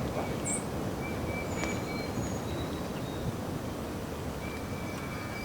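Strong wind blowing steadily, with a few faint, thin, high bird notes heard now and then.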